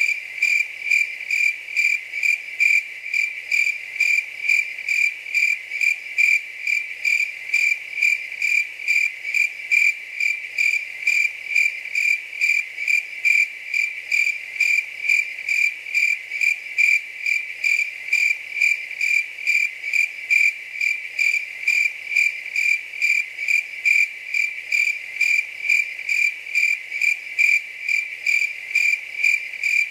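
A cricket chirping steadily: short high-pitched chirps repeated evenly at about two to three a second.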